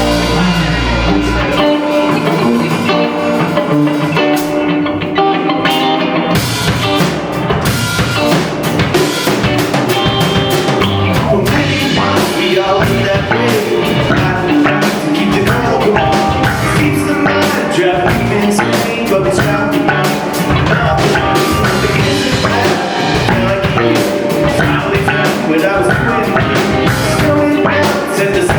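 Live rock band playing electric guitar, bass and drum kit. The bass and drums drop out about a second and a half in, leaving guitar. The full band with drums comes back in about six seconds in.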